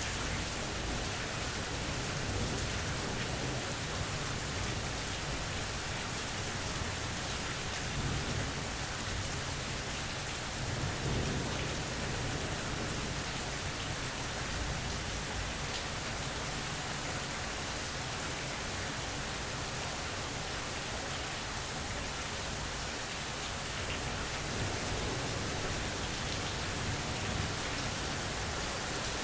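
Steady rain falling in a mild thunderstorm, with low rumbles of thunder that swell a little about eight and eleven seconds in and again near the end.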